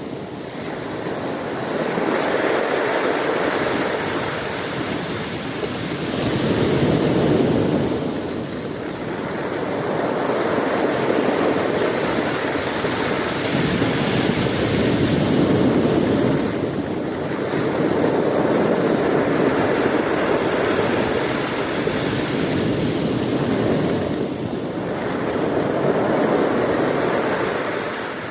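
Ocean waves breaking and washing onto the shore, the surf swelling and fading every few seconds.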